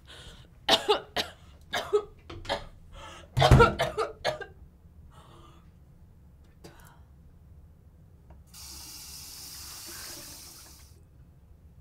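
A woman in a coughing fit: a string of harsh coughs over the first four seconds or so, the loudest about three and a half seconds in. Later a bathroom sink tap runs for about two and a half seconds and is shut off.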